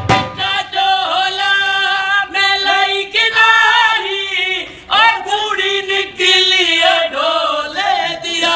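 Voices singing a chant-like melody with no drumming under it.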